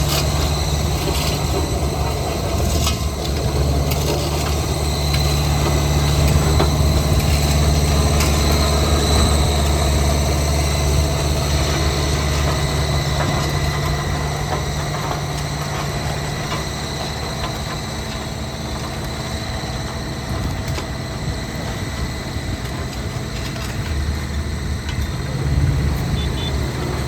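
Heavy diesel engine of construction machinery running steadily with a low hum, easing off through the middle and picking up again near the end.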